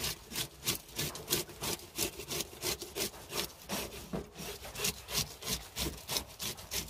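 Metal fish scaler scraping the scales off a large fish on a stainless-steel draining board, in quick rhythmic strokes, about three a second.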